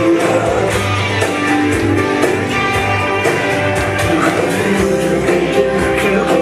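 Lively music with guitar and a steady beat, played for the first dance.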